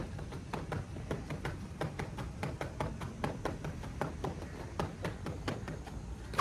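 Heavy battle ropes being whipped in waves, slapping rapidly against a rubber gym mat, several slaps a second. A steady low rumble runs underneath.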